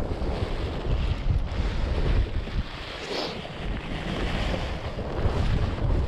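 Gale-force wind gusting and buffeting the microphone: an uneven low rumble under a broad rushing hiss, easing a little about halfway through and strengthening again near the end.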